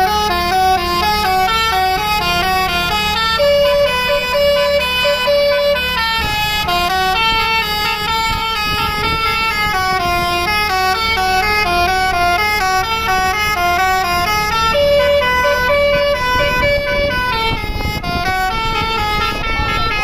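A tour bus's basuri multi-tone musical horn plays a melody of separate held notes that step up and down, with a phrase that comes round twice and a longer high note each time. The bus's engine runs underneath.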